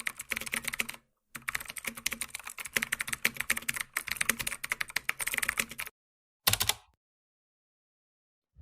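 Rapid typing on a computer keyboard, a dense run of key clicks with a brief pause about a second in. It stops near six seconds, with one short final burst about half a second later.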